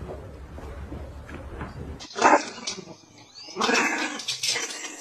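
Small dog barking at a gate: one sharp bark about two seconds in, then a longer run of barking about a second and a half later.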